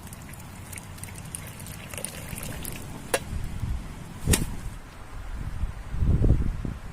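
Rain falling around a camp with wind rumbling, a scatter of small drop ticks, and two sharp knocks about three and four seconds in; a stronger gust swells near the end.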